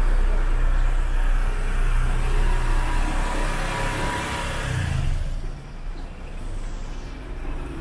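A car passing close by: engine rumble, with the noise of its passing swelling to a peak about four seconds in and dying away by about five seconds.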